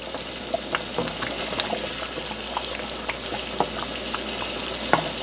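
Thick potato curry gravy bubbling and popping in a pan just taken off the heat, while a wooden spoon stirs boiled eggs through it, with scattered small clicks and one sharper click near the end.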